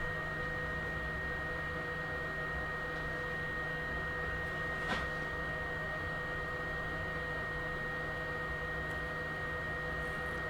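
A steady electrical hum with a thin high whine, unchanging throughout, with one faint click about five seconds in.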